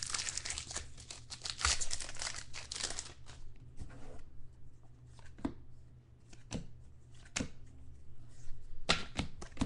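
Trading cards and their wrapping being handled: dense crinkling and rustling for the first three seconds, then scattered clicks and light taps, with another short flurry near the end.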